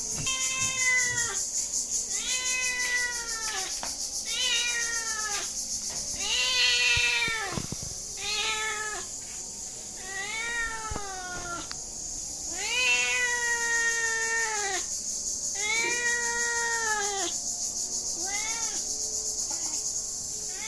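A cat meowing repeatedly: about nine drawn-out, rising-then-falling meows, roughly one every two seconds, over a steady high-pitched hiss.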